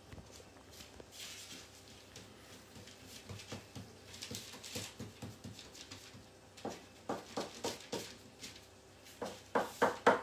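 Baking paper rustling as chocolate salame mixture is pressed and shaped on it by hand. Then come runs of quick, sharp taps, the loudest near the end.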